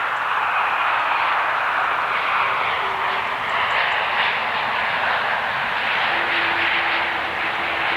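Airbus A330 jet engines running as the airliner flies close by on its landing, a steady loud rushing roar.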